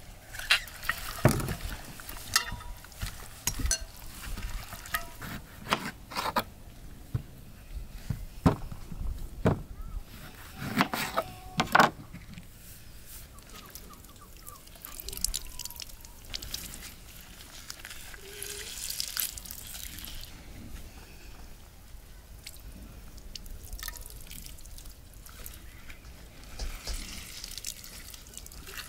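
Raw pike perch and silver carp pieces being worked with spices by rubber-gloved hands in an enamel bowl: wet squelching, with sharp clicks and knocks of fish against the bowl, busiest in the first dozen seconds. Then quieter, with faint rustling as salt is sprinkled over the fish.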